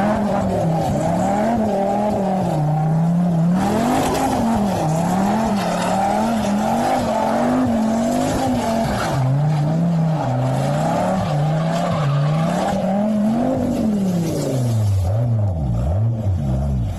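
Sports car engine revving up and down over and over, about once a second, with tyres squealing under it.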